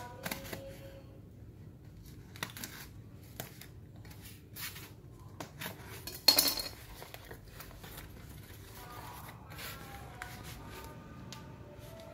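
A kitchen knife slitting packing tape on a small cardboard box, and the box's flaps being pulled open: scattered scrapes, taps and cardboard rustles, with one sharp clink about six seconds in.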